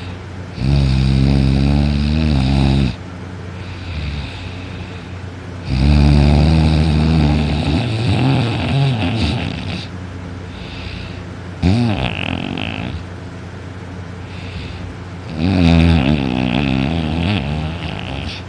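A sleeping person snoring very loudly: four heavy snores about every five seconds, the third one short, with quieter breathing between them.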